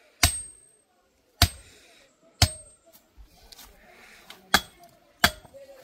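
Mallet striking a metal soil-sampling tube to drive it into the ground: five hard blows roughly a second apart, with a pause in the middle, each giving a short metallic ring.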